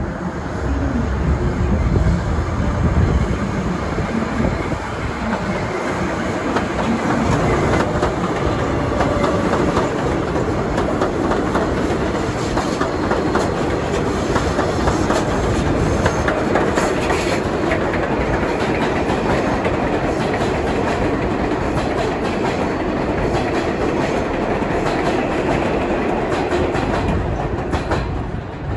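R188 subway train on the elevated Flushing Line express track running past: a long, steady rumble of steel wheels on rail with clickety-clack over the rail joints.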